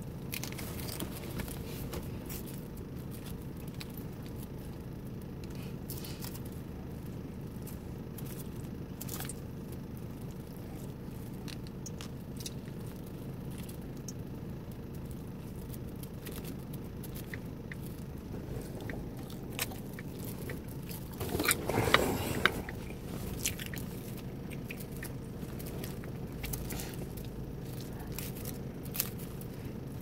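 Close-up mouth sounds of chewing and biting salad, with soft crunching of lettuce and scattered clicks of a fork in a plastic container, over a steady low hum. About three-quarters of the way through comes a louder stretch of noise lasting a second or two.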